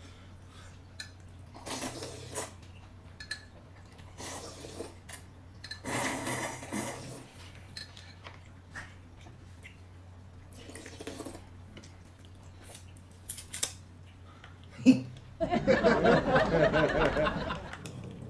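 Dishes and cutlery clinking and being handled in short bursts. About fifteen seconds in comes a sharp knock, the loudest sound, followed by a person laughing for a couple of seconds.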